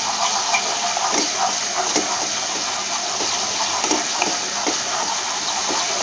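Yogurt-and-spice masala sizzling in a wok with a steady hiss, while a spatula stirs and scrapes through it with small, irregular scrapes and taps. The yogurt is being fried into the masala and is stirred constantly so it does not curdle.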